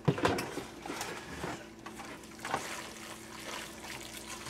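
Wooden spoon stirring and tossing buttery, creamy fettuccine in a stainless steel pot: irregular wet squelching with a few sharp scrapes and taps, over a faint steady hum.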